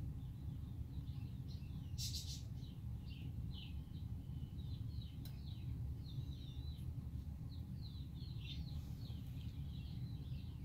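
Newborn puppies squeaking: many short, high-pitched chirping squeaks, often falling in pitch, over a steady low hum.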